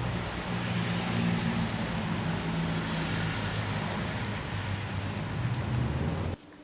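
Steady rain with a low hum underneath, cutting off suddenly near the end.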